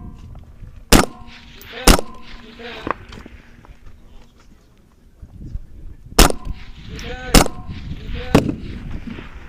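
Rifle shots, five sharp reports in two spaced groups, each hit answered by a steel IPSC target ringing with a clear metallic tone.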